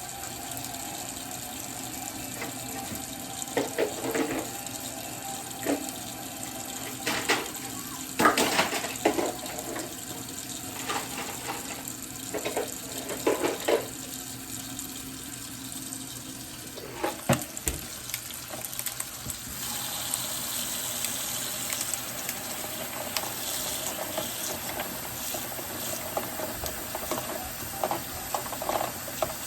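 Kitchen tap running water into a sink while a container is filled, with a few knocks and clatters of things being handled; the flow gets louder about two-thirds of the way through.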